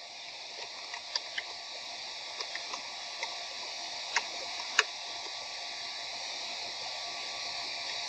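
Computer keyboard keys clicking irregularly as text is typed, about ten keystrokes in the first five seconds, over a steady microphone hiss.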